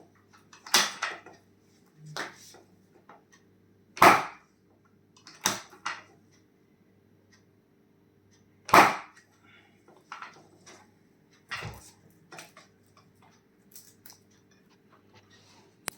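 Sharp cracks and thumps during a chiropractic adjustment of the back and neck, about half a dozen at irregular intervals, over a faint steady low hum.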